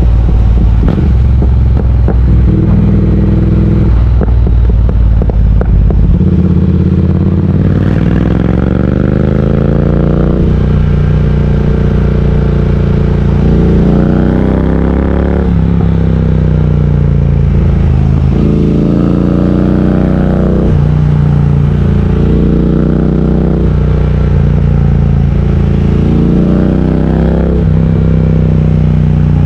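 Triumph Speed Twin 1200's parallel-twin engine under way, its pitch climbing and then dropping sharply several times as the bike accelerates and shifts up through the gears.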